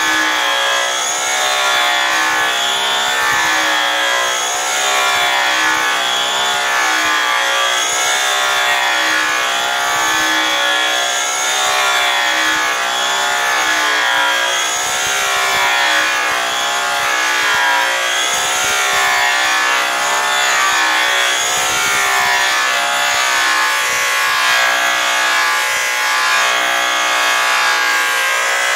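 Two electric angle polishers with airway buffing wheels running steadily, their motor whine wavering slowly in pitch as the buffs are pressed into aluminum. They are cutting the tank's surface with brown Tripoli compound to polish out a scratch.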